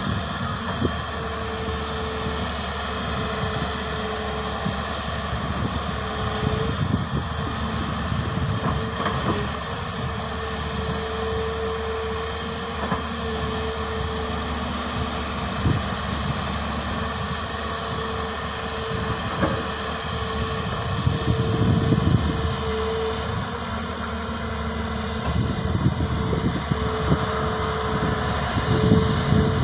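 Hyundai crawler excavator's diesel engine running steadily while it digs mud, with a steady whine that keeps cutting in and out. The engine noise grows louder for a few seconds about two-thirds of the way through and again near the end.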